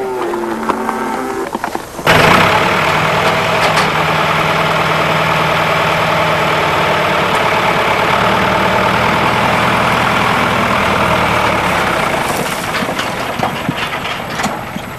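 Tractor engine running steadily, cutting in abruptly about two seconds in and fading away near the end.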